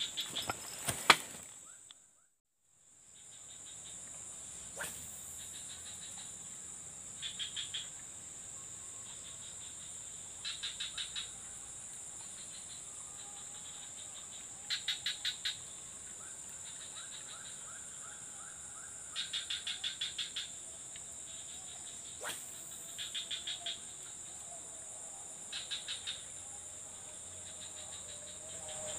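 Steady high-pitched insect chirring, with short trains of rapid pulsed chirps every few seconds. The sound drops out briefly about two seconds in.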